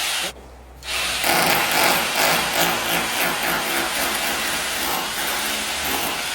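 Electric hammer drill boring into a brick wall. It stops briefly just after the start, then starts again about a second in and runs on steadily.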